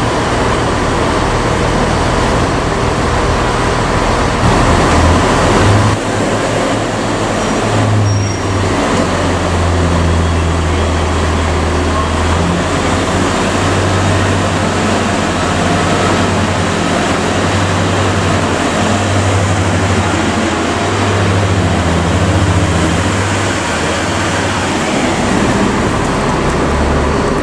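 Steady vehicle noise: a low engine hum that shifts up and down in pitch every few seconds, under a constant rushing noise.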